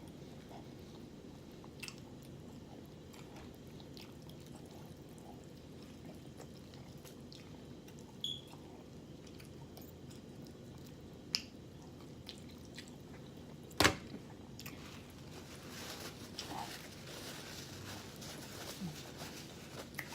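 A person chewing rotisserie chicken close to the microphone, with scattered sharp clicks; the loudest click comes about 14 s in, and the chewing grows denser near the end.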